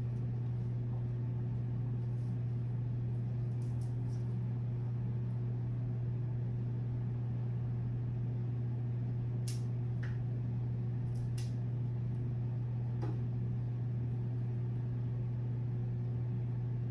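Steady low hum of room background noise, with a few faint clicks a little past halfway.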